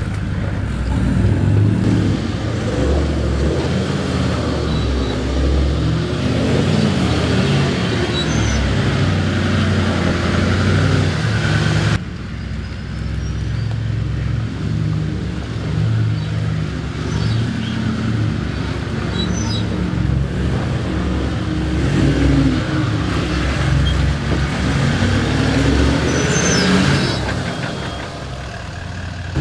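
Toyota LandCruiser 4WD engine working under load, revving up and down as the vehicle crawls over a rutted, rocky track. About twelve seconds in it cuts to a second LandCruiser doing the same.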